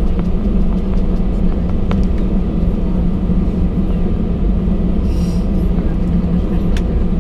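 Cabin noise of an Airbus A319 taxiing after landing: the steady low drone of its CFM56 engines at taxi power and the rumble of the rolling airliner. There are a few light clicks, and a brief hiss about five seconds in.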